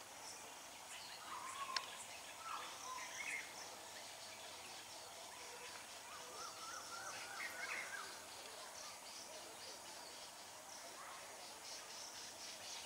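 Birds chirping and calling, with a run of warbling calls in the middle, over a faint steady high hiss; a single sharp click comes just under two seconds in.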